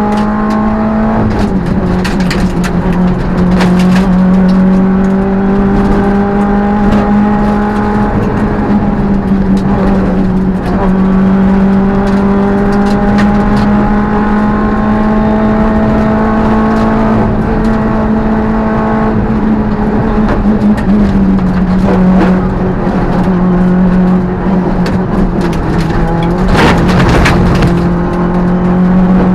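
Peugeot 205 rally car's engine heard from inside the cabin at racing pace. The revs climb and drop back several times as the driver works through the gears, with frequent sharp clicks and knocks over the engine sound.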